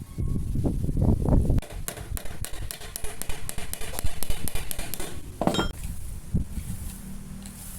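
Wire rake made from a fan's metal grille, rattling with a quick run of light metallic clicks and clinks, then one louder scrape. A faint steady hum comes in near the end.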